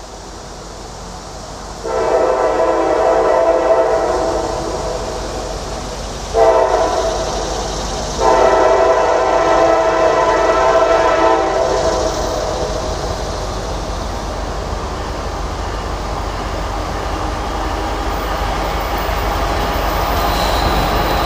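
Air horn of Norfolk Southern SD60E #6911 sounding three blasts, long, short, long, a multi-tone chord. After that the approaching diesel freight locomotives rumble, growing louder as they near.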